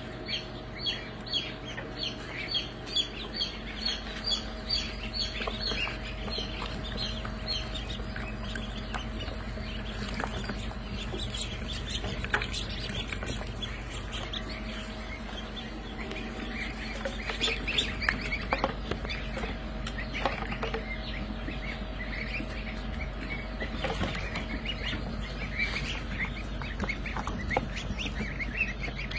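A crowd of ducklings and goslings peeping continuously, many short high calls overlapping, with one bird calling loudly about twice a second for the first several seconds. A steady low hum runs underneath.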